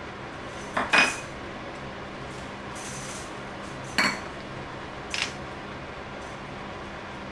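A metal spoon clinking against a stainless steel frying pan as ingredients are tipped in and stirred: a double clink about a second in, a sharp one at about four seconds and a lighter one just after five.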